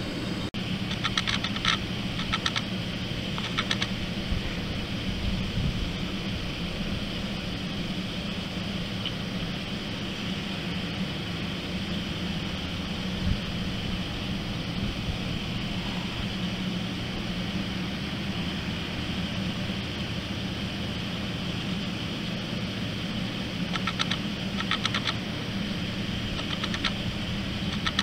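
Cats eating, their chewing heard as short runs of quick clicks a second or so in and again near the end, over a steady low mechanical hum.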